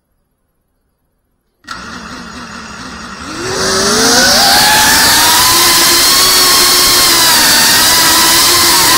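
FPV quadcopter's brushless motors, heard from the drone's own camera. They come on about two seconds in with a low idle hum, then spin up in a rising whine as the drone lifts off. After that they run loud and steady, the pitch wavering with the throttle.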